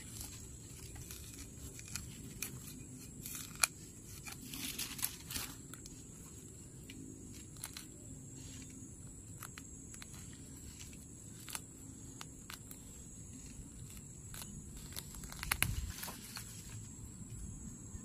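Fingers digging and scraping in dry, crumbly soil and leaf litter around a caladium plant, with scattered crackles and small tearing snaps as roots and dry stems give way. The loudest rustling comes a couple of seconds before the end.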